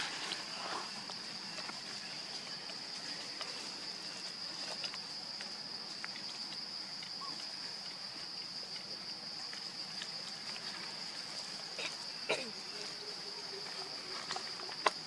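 Steady high-pitched drone of insects, crickets or cicadas, holding one pitch throughout, with scattered faint clicks and rustles. About twelve seconds in, a brief falling sound is followed by a low steady hum for a couple of seconds.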